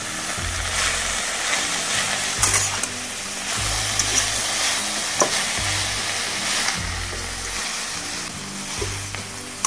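Julienned vegetables sizzling in hot oil in a stainless steel wok as they are stir-fried, with a few sharp clicks of the metal utensil against the pan.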